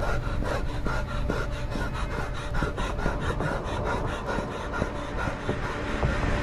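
A boy panting hard as he runs, with quick, evenly spaced running footsteps.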